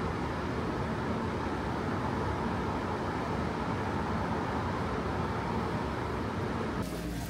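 Steady city street traffic noise, an even hum of cars and engines, which drops off abruptly near the end.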